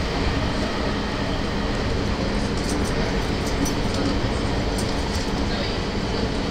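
Running noise of a JR E217-series electric train at speed, heard from inside a motor car: a steady rumble of wheels on rail with a faint hum, and a few light clicks around the middle.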